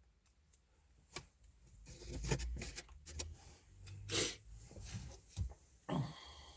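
Handling noise from a dash cam kit and its plastic packaging: irregular rustling, scraping and clicks, loudest around the middle and with a sharp knock near the end.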